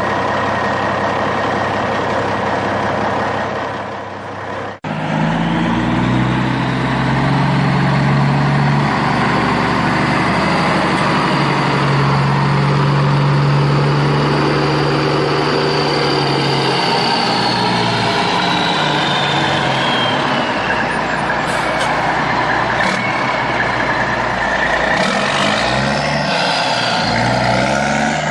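A heavy vehicle's engine running loudly. It cuts out abruptly about five seconds in, then comes back with a steady, higher note, and a high whine slides down in pitch about two-thirds of the way through.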